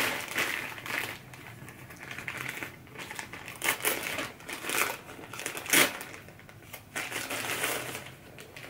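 Packaging being handled: paper wrapping and a small cardboard box crinkling and rustling in irregular spurts, with a sharper crackle about six seconds in.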